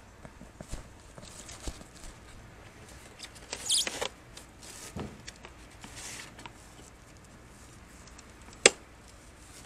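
Plastic radiator fan shroud assembly being handled and shifted on grass: scattered light knocks and rustles, a short rustling burst about four seconds in, and one sharp click near the end.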